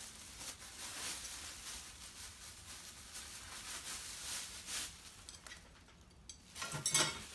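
Rustling packaging and light clinks of small metal tools and parts being handled while they are unpacked, with a louder cluster of clicks near the end.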